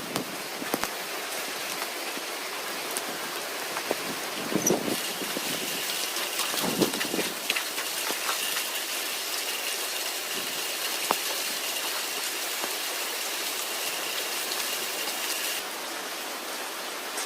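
Steady rain falling, an even hiss with scattered sharp drop hits and a few heavier splashes. A faint, thin, high steady tone runs through it from about five seconds in until near the end.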